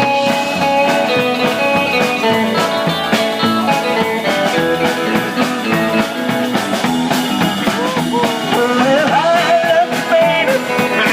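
Live rock and roll band playing an instrumental intro: electric guitar lines over bass and a steady drum beat, with some bent notes near the end.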